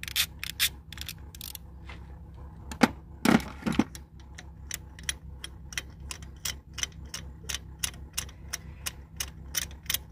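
Ratchet wrench on a 16 mm spark plug socket clicking steadily as the number one spark plug is unscrewed, about three clicks a second, with a couple of louder knocks about three seconds in.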